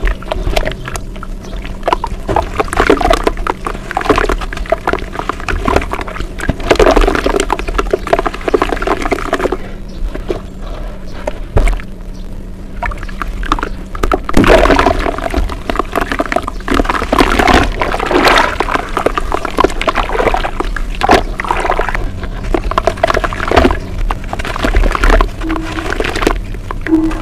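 Close-miked wet, crackly sounds of creamy brown dirt paste being worked, coming in irregular bursts with a quieter lull about ten seconds in.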